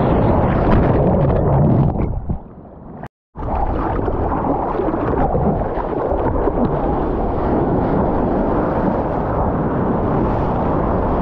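Small breaking waves' whitewater rushing and splashing right against the microphone, with water and wind buffeting it. About two seconds in the sound goes muffled and cuts out for a moment, then the steady rush of surf resumes.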